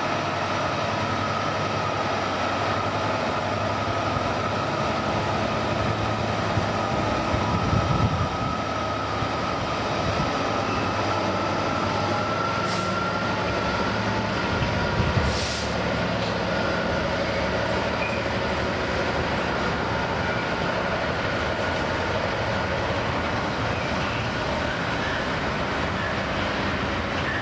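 A train running, with a steady high tone that slowly rises in pitch over a low hum. It gets briefly louder twice.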